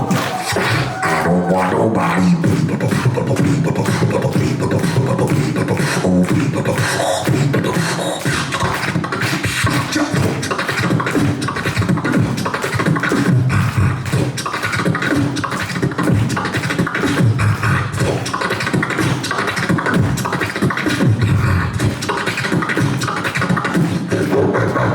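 Beatboxing: a fast, steady run of mouth-made kicks, snares and hi-hat clicks with vocal bass tones, amplified through a PA.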